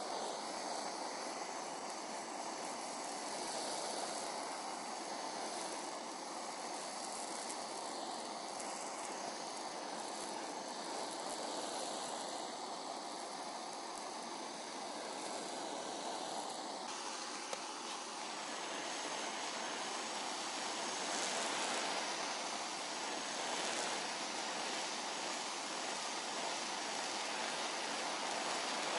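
Handheld gas blowtorch flame hissing steadily as it is played over a slice of bread, a little louder in the last third.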